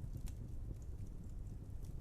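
Wood fire burning: a steady low rumble with a few sharp crackles and pops, the clearest about a quarter second in and near the end.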